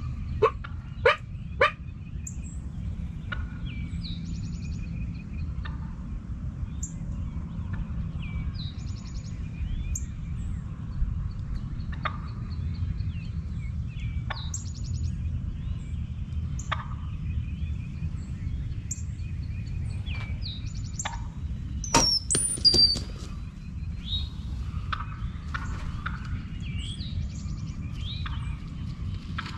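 Birds calling and chirping over a steady low rumble of wind. There are three sharp loud sounds in the first two seconds and another loud burst about 22 seconds in.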